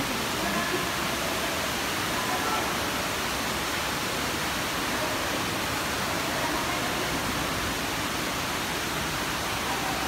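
Steady rushing of falling water, with faint voices in the background.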